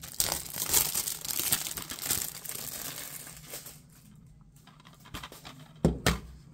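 Cellophane shrink-wrap crinkling and tearing as it is peeled off a DVD case for about three and a half seconds, then two sharp plastic clicks near the end as the case is snapped open.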